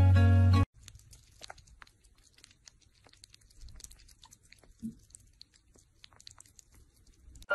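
Sugar gliders licking and nibbling food from a small plastic cup: faint, quick clicks and crunching chews. Acoustic guitar music plays loudly for the first moment, then cuts off suddenly.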